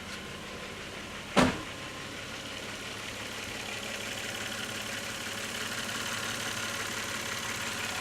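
Toyota 7M straight-six engine idling steadily, growing louder toward the end. A single sharp thump sounds about a second and a half in.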